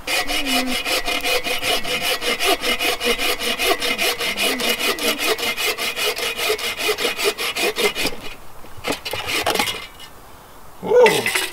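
Hand saw cutting through a log in quick, even back-and-forth strokes that stop about eight seconds in. Near the end a dog gives a short whine.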